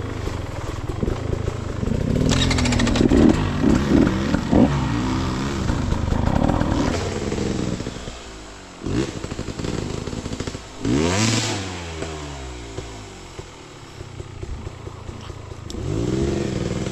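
Dirt bike engine revving hard in repeated bursts on a steep trail climb, its pitch swinging up and down as the throttle is worked. The strongest revs come a few seconds in, around halfway, and near the end.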